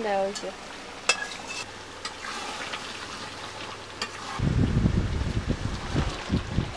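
Food frying in a metal wok over a wood-fired clay stove. In the second half the wok is handled and lifted, with a loud uneven low rumble.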